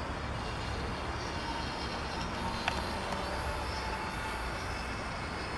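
Wind noise on the microphone, with the faint whine of an electric RC stunt plane's motor and propeller passing overhead, its pitch shifting a little midway. A single sharp click about two and a half seconds in.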